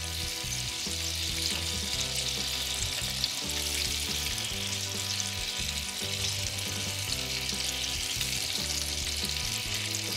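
Battered chicken nuggets deep-frying in peanut oil in a small saucepan, a steady sizzle as they are moved around in the oil.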